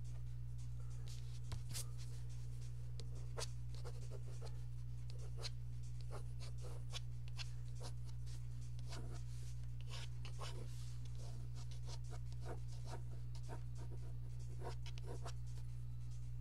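Mechanical pencil sketching on paper: many short, quick scratching strokes, irregular in rhythm, over a steady low electrical hum.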